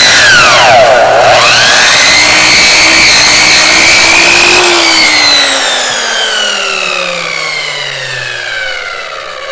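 Electric chop saw running at full speed with a loud whine, cutting through a bone-in New York strip; its pitch dips sharply and recovers about a second in. From about five seconds in the motor is switched off and winds down, its whine falling steadily in pitch and fading.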